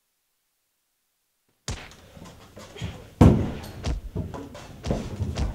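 Silence, then, a little under two seconds in, a scuffle breaks out: a string of knocks and thuds, the heaviest a little after three seconds in, as a body goes down onto the carpeted floor.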